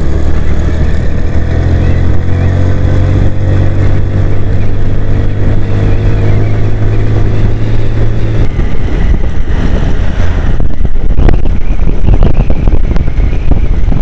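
Motorcycle engine running while riding, its note rising slowly as the bike accelerates. About eight seconds in the steady engine tone breaks off, and a rough wind rush over the microphone dominates.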